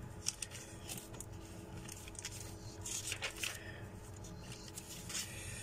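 Paper rustling and light handling sounds of a school exercise book being leafed through and moved on a desk: a few short rustles, the strongest about three seconds in and again near the end, over a faint steady hum.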